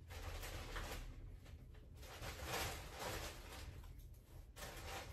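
Faint rustling and handling noises in uneven bursts of about a second as skeins of yarn are handled and set on shelves, over a low steady hum.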